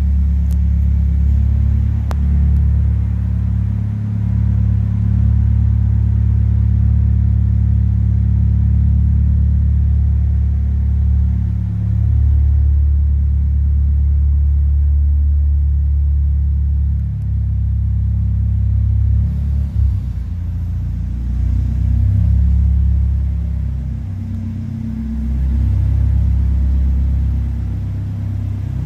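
Second-generation Mitsubishi Eclipse's engine idling with a steady, low exhaust note. The idle shifts slightly a few times in the second half.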